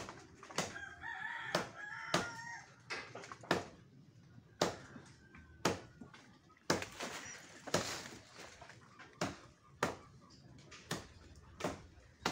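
Rooster crowing and chickens clucking, mostly in the first couple of seconds, over sharp knocks about once a second from a blade chopping the branches of an avocado tree.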